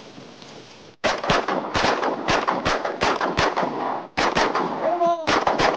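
Volley of shotgun blasts from several hunters firing together at passing waterfowl: a rapid string of overlapping shots beginning about a second in, a short lull with a brief call near five seconds, then a few more shots.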